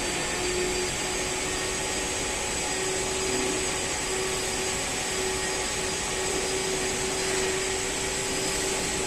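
Robotic MIG/MAG welding arc laying a weld on a roller: a steady, continuous hiss and crackle with a constant hum underneath.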